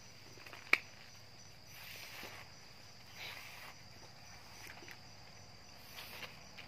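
Hands working cocopeat into a plastic seedling tray: soft rustling and scraping of the plastic tray and sheet, with one sharp click about a second in. A steady high-pitched insect chirring runs underneath.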